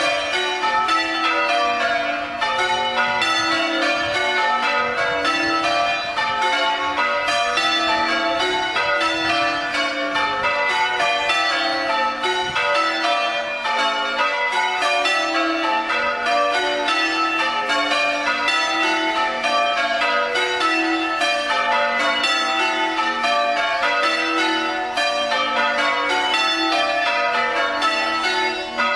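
Church bells in change ringing: a ring of tower bells rung full circle during a quarter peal, struck one after another in a steady, unbroken stream of changes.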